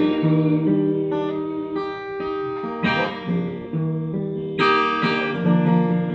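Acoustic guitar strumming chords between sung lines of a ballad, each strum ringing on for a second or more. The tail of a held sung word fades at the start.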